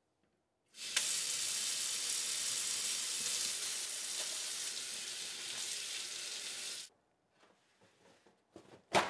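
Kitchen faucet running steadily onto hands being washed and into the sink. The water is turned on about a second in and shut off about seven seconds in. A few faint rustles follow, then a short sharp tear as a paper towel is pulled off the roll near the end.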